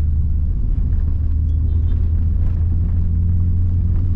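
Car engine and road rumble heard from inside the moving car, a steady low drone as it heads up a mountain road, with the engine note shifting slightly about two-thirds of the way through.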